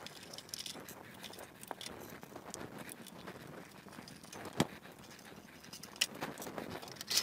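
An Allen wrench turning out the screws of a 3D printer's metal bottom cover: faint small clicks and scrapes, with two sharper clicks about four and a half and six seconds in.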